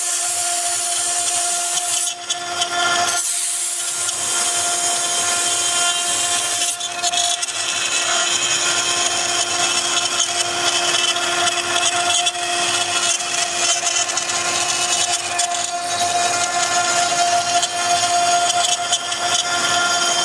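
Wood CNC router's 3.5 kW spindle running with a steady whine while its bit carves a relief into a wood panel, with a rasping cutting noise over it.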